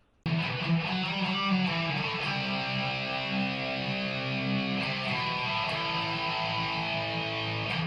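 Outro music: strummed electric and acoustic guitar chords with sustained notes, starting sharply about a quarter second in.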